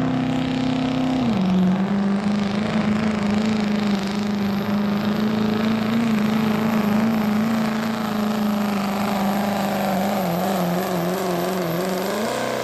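Diesel pickup truck's engine running hard under full load as it pulls a weight-transfer sled. Its pitch drops about a second in, holds steady, wavers up and down near the end, then rises briefly.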